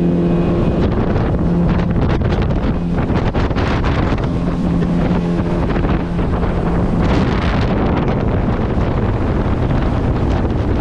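Motorboat running at speed, its engine holding a steady low tone, with heavy wind buffeting the microphone and water rushing past the hull.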